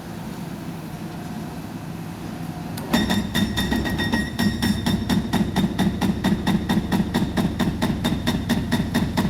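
Excavator's diesel engine running steadily. About three seconds in, rapid, evenly spaced hammering starts, about six blows a second, from a hydraulic breaker pounding concrete.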